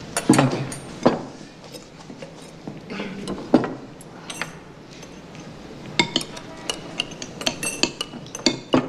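Cutlery and plates clinking at a dining table: plates set down and knife and fork against a plate. Scattered sharp clinks, a few at first and then quick, frequent ones in the last few seconds.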